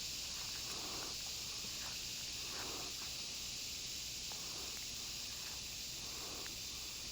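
Steady outdoor insect chorus, an even high buzz, with faint scattered rustles and a few light clicks of close handling.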